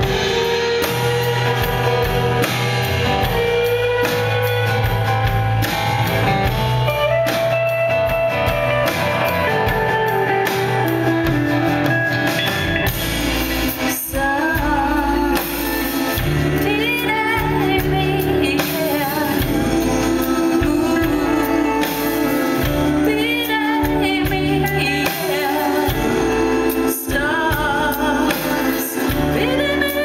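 Live rock band playing: electric guitar leads over bass and drums, and a woman's lead vocal comes in about halfway through and carries on over the band.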